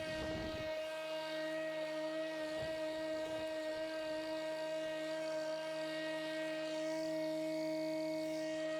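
Pellenc Rasion 2 Easy battery-electric lawnmower running at a steady speed, its motor and blade giving a constant, even whine. There are brief low rumbles in the first second.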